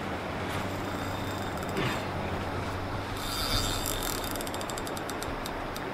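Fishing reel clicking in a fast ratchet run, starting about three seconds in, over a steady hiss, as a line with a large catfish on it is worked.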